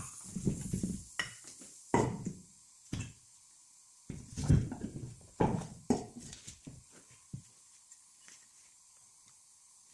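Metal strut top mount and parts knocked and set down on a wooden workbench: a run of irregular clunks and clinks that thins out after about seven seconds to a few faint ticks.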